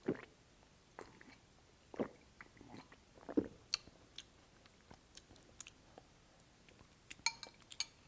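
A person chewing and crunching mouthfuls of cold cucumber soup, a crunch about once a second for the first few seconds, then a few sharp clinks near the end.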